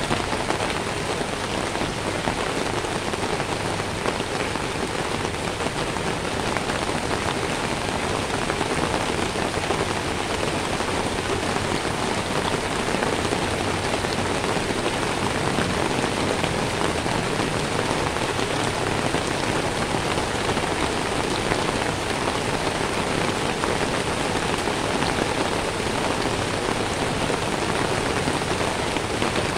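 Steady rain falling on wet pavement.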